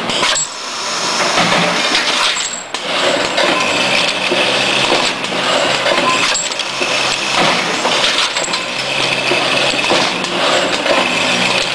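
Bolt parts feeder running: a continuous dense clatter and clinking of metal bolts as they are fed and jostle along the twin feed tracks, over a steady low machine hum.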